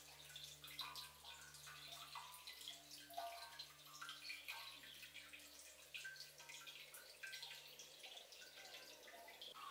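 Faint water dripping and trickling: many small scattered drops throughout, over a low steady hum.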